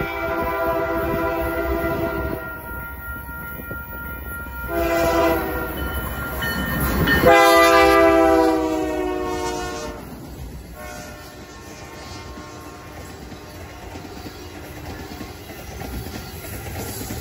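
Diesel freight locomotive's air horn, on a GE AC4400CWM: a long blast that ends about two seconds in, a short blast near five seconds, then a final long blast whose pitch drops as the locomotive passes close by, the loudest moment. After the horn stops, the train's cars roll past with the wheels clicking over the rail joints.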